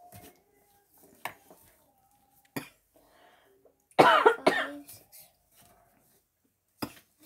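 A person coughing twice in quick succession about four seconds in. A few short sharp taps come before and after.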